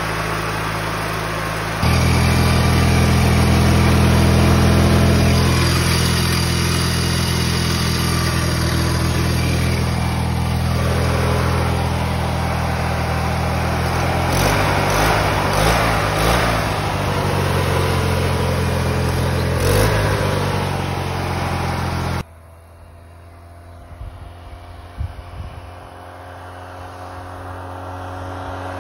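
Craftsman riding mower's Briggs & Stratton 19.5 HP I/C Platinum engine running close up. It gets louder about two seconds in, and its speed wavers for several seconds in the middle. After a sudden cut, a small engine sounds from farther off, growing louder as it comes closer.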